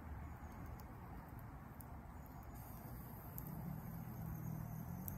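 Campfire with a frying pan of onion and tomato on the grill: faint sizzling and crackling, with scattered small pops. A faint low hum joins about three and a half seconds in.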